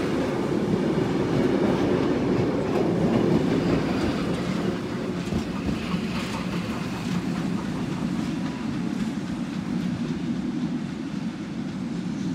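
Preserved wooden Tait suburban train carriages rolling past on the rails: a steady low rumble with wheels clacking over rail joints, easing slightly as the train moves off.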